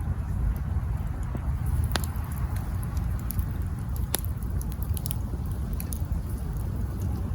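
Wood campfire burning: a steady low rumble with scattered sharp crackles and pops, the two loudest about two and four seconds in.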